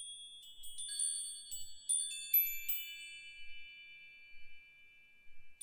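A run of high, bright chime notes struck one after another over the first few seconds, each left ringing so they overlap, then slowly fading away.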